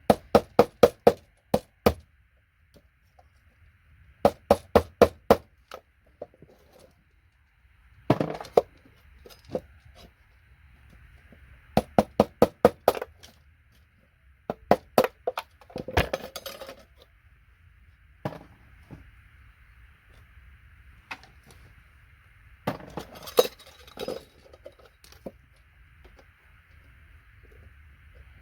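A hammer tapping a paint scraper to knock gold-plated connectors off scrap circuit boards: quick runs of five to seven sharp metallic taps, then pauses of a few seconds before the next run. A faint steady high hum sits underneath.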